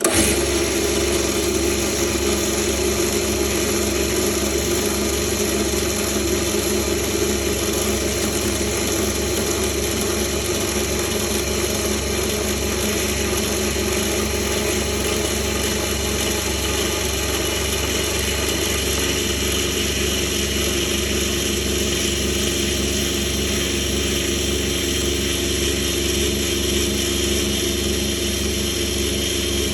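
Bench drill motor running steadily, spinning a grinding stone: an even motor hum with a steady tone.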